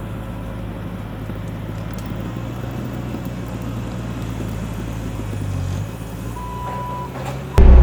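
Diesel engine of a Bobcat T650 compact track loader running with a steady hum, its pitch dipping briefly about six seconds in.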